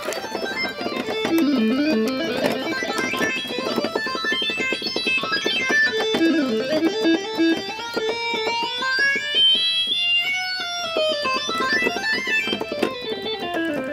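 Roland electronic keyboard played in quick runs of notes, with a held note bending smoothly up and back down about two-thirds of the way in.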